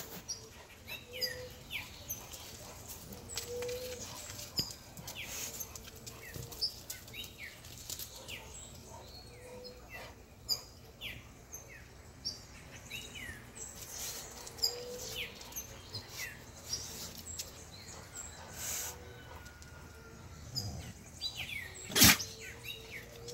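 Small birds chirping outdoors: many short, quick downward chirps repeated throughout. A single sharp knock comes near the end and is the loudest sound.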